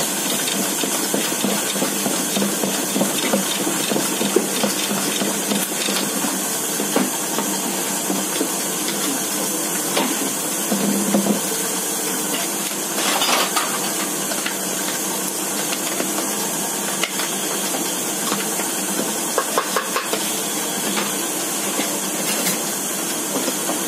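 A steady hiss of kitchen background noise, with occasional light clinks and scrapes of a spatula working batter in a stainless steel mixing bowl.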